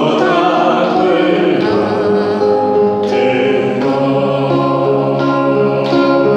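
Group of voices singing a slow song together, with instrumental accompaniment.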